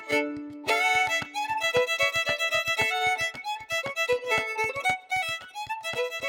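Outro music led by a fiddle, in a quick, even rhythm of plucked and bowed notes.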